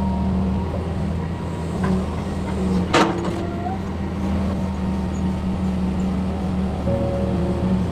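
Hitachi hydraulic excavator's diesel engine running steadily while digging, with one sharp knock about three seconds in.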